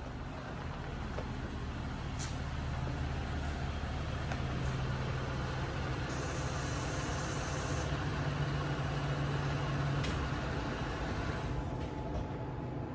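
A motor vehicle's engine running steadily, with a low hum, a little louder in the middle.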